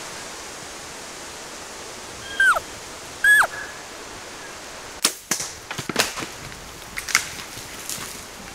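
Two short, loud elk cow-call mews, each falling in pitch, about two and three seconds in; then the sharp crack of a bow shot about five seconds in, followed by a scatter of sharp snaps and knocks over a steady background hiss.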